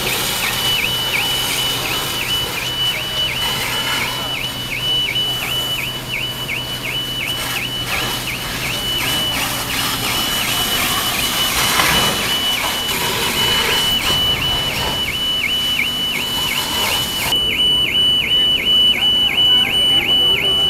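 An electronic alarm warbling: a high tone that dips and comes back about two to three times a second, without a break. Under it is the steady hiss of the truck fire and the hose water jets, which stops abruptly near the end.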